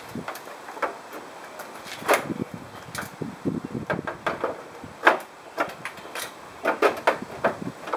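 Irregular clicks and knocks of a Chevrolet Silverado's plastic grille and its mounting clips and brackets as they are worked at by hand to release the tabs.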